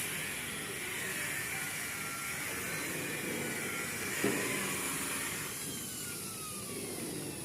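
A small motor whirring steadily, with a falling whine about three quarters of the way through as it slows.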